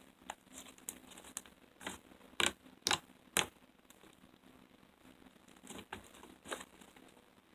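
Slime being squished and pulled by hand, giving irregular short sticky pops and crackles, with three louder pops in quick succession a little after two seconds in.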